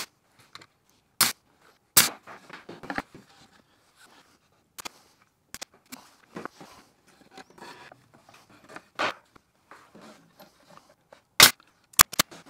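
Pin nailer firing pins into a half-inch plywood drawer box. It gives a string of sharp snaps at uneven intervals, three close together near the end, with quieter knocks and rustles of the wood being handled between shots.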